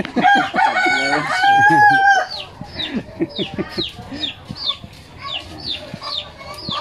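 A rooster crows once, a loud call of about two seconds ending on a held note. After it comes a run of short, high, falling peeps, about three a second.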